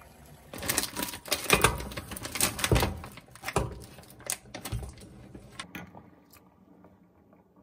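Crinkly plastic bag of frozen dumplings rustling and crackling as the dumplings are shaken out into a pot of boiling water. The crackling is dense for the first few seconds, then sparser, and it dies away about six seconds in.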